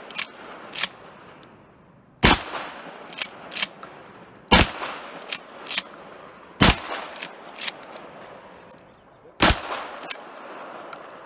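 Shotgun firing four shots, spaced two to three seconds apart. Each loud report is followed by one or two fainter cracks.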